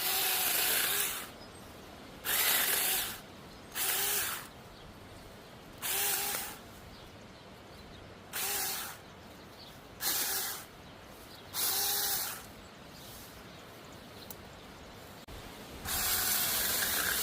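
Tiny battery-powered handheld chainsaw triggered in eight short bursts, its motor whining up to speed with the chain running each time, the longest at the start and near the end.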